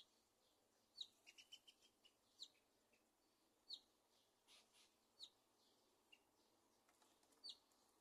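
Faint, short, high chirps from a small bird, repeated every second or so, with a quick run of lower chirps about a second in.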